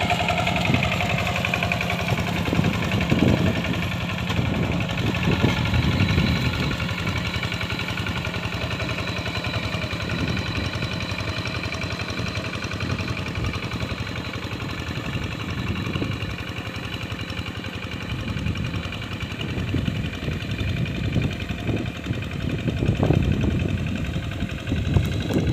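Paddy-field ploughing tractor's engine running steadily at an even speed.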